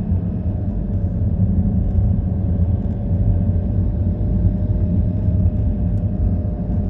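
Car driving along a road: a steady low rumble of engine and tyres with a faint steady hum above it.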